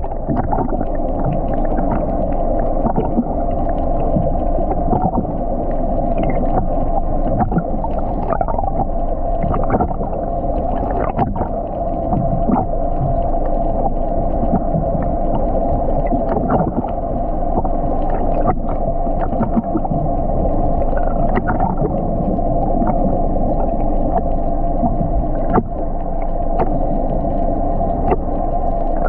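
A boat's engine running steadily, giving a constant hum, with scattered short knocks over it.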